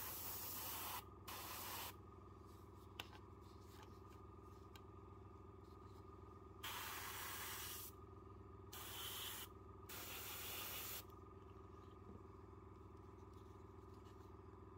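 Fengda starter airbrush spraying paint in about five short hissing bursts, over the steady hum of its small air compressor.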